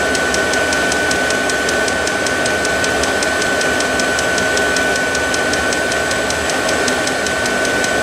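Vevor 5 kW diesel heater running steadily: its blower rushing with a constant high whine, and its fuel pump ticking evenly about four times a second, pumping at the 4 Hz rate used after startup.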